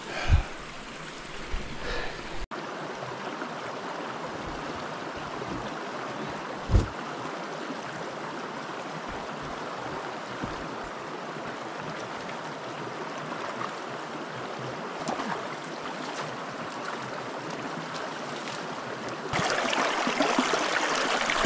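Shallow creek running over stones, a steady rushing, with a single thump about seven seconds in. Near the end the water gets louder as a plastic bottle is held in the current to fill.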